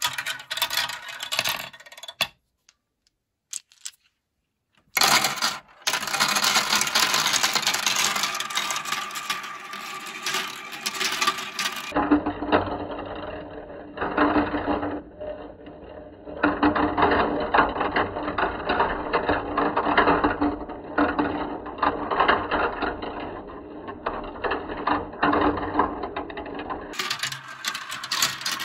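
Plastic balls rolling and clattering through a plastic marble run, rattling down chutes and spinning around funnel bowls in a dense stream of clicks. There is a near-silent pause a couple of seconds in, and through the middle stretch the clatter sounds duller.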